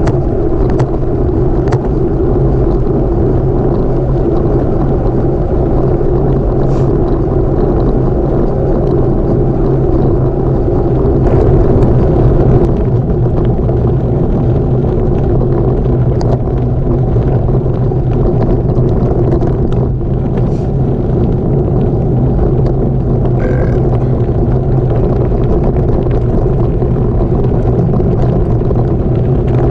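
Gravel bike rolling fast along a gravel road: a loud, steady rumble of the tyres on loose gravel, with scattered small clicks of stones.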